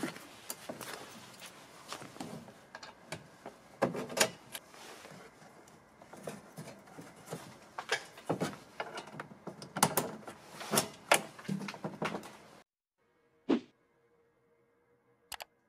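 Irregular clanks, knocks and rattles of a steel MOLLE panel being handled and folded up flat against a vehicle's rear door. It stops abruptly about thirteen seconds in, leaving near silence with two faint clicks.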